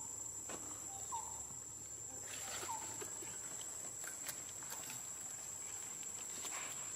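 Dry leaf litter crackling and rustling as macaques move about, with three short high chirps in the first few seconds. A steady high-pitched whine runs underneath.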